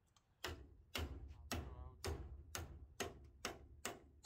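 Claw hammer driving a concrete anchor bolt down through a gazebo post's base bracket into a hole drilled in the concrete patio: about eight sharp, evenly spaced blows, roughly two a second, starting about half a second in.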